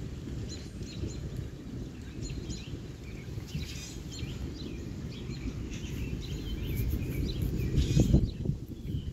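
Low rolling thunder rumbling and swelling to its loudest peak about eight seconds in, while small birds chirp.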